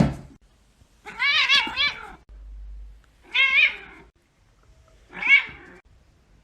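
A cat meowing three times, long calls whose pitch wavers up and down, the first the longest and the last the loudest.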